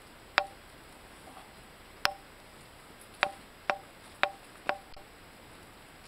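Eurasian nuthatch pecking seeds on wooden deck boards: six sharp beak taps, irregularly spaced, the last four in quick succession about half a second apart.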